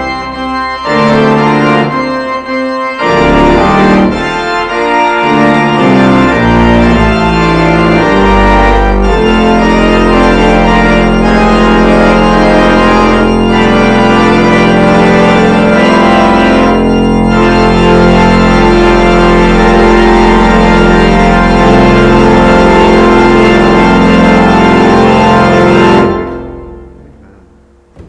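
Church organ playing the end of a piece: a few seconds of moving chords, then one final chord held for about sixteen seconds. It is released about two seconds before the end and dies away in the reverberant sanctuary.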